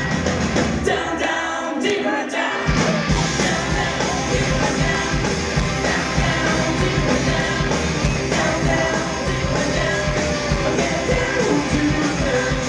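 Rock trio of electric guitar, electric bass and drum kit playing live through a festival PA. About a second in, the bass and drums drop out briefly, then the full band crashes back in at about two and a half seconds and plays on.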